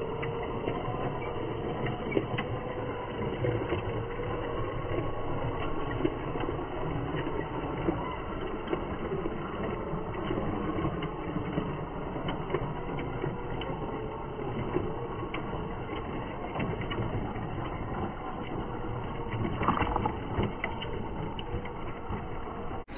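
Small electric motor and gearbox of a 1:16 scale WPL B36 Ural 6x6 RC truck running steadily with a faint whine, mixed with scattered small clicks and crunches from the tyres on dirt and rocks.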